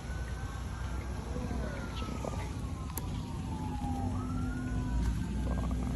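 Emergency vehicle siren wailing, its pitch sweeping slowly up and down, with more than one wail overlapping at times.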